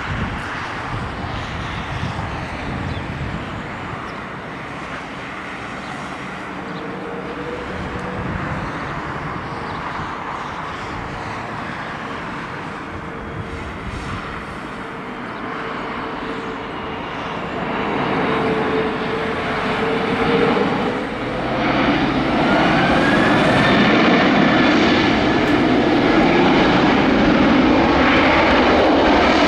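Airbus A330-202 jet engines (GE CF6-80E1 turbofans) running on approach: a steady roar with a held whine, growing louder about twenty-two seconds in, where a rising whine joins it, and staying loud to the end.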